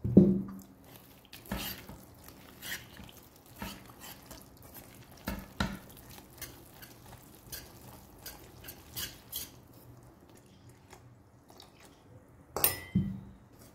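Wire whisk stirring thick semolina and gram-flour batter in a steel bowl: soft wet stirring with irregular clicks of the wires against the bowl, and a louder clink near the end.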